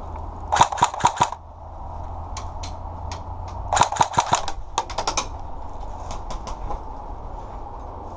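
Airsoft gun firing: a rapid string of about five shots, then a second rapid string about three seconds later, followed by a few fainter scattered shots.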